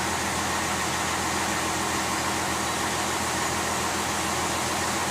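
Motorboat engine running steadily, with the rush of wind and water as the boat moves along the canal.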